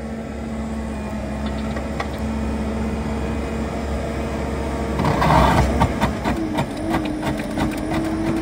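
Skid steer running a Coneteks 2.13M rotary grinding attachment, engine and rotor humming steadily. About five seconds in comes a loud grinding crash, then a string of sharp knocks and clatter as the rotor's teeth chew into something hard in the ground, here a buried metal wire. Right after, the engine note steps up in pitch.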